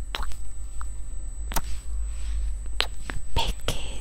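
Blown kisses into a close microphone: several sharp lip smacks at irregular intervals, with brief breathy sounds between them.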